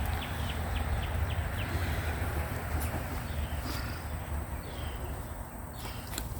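Outdoor ambience: a steady low rumble, with a quick run of short high chirps, about four a second, in the first second and a half, and a few faint clicks later.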